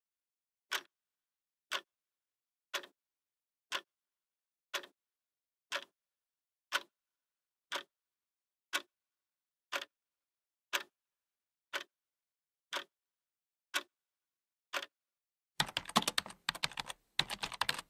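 A clock ticking once a second, about fifteen even ticks. About two seconds before the end the ticking gives way to a fast, dense clatter of keyboard typing, louder than the ticks.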